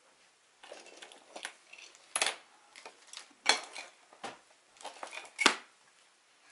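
Handling noises from a phone being fitted to a drone's remote controller: light rustling with a few sharp plastic clicks and knocks, the loudest about two, three and a half and five and a half seconds in.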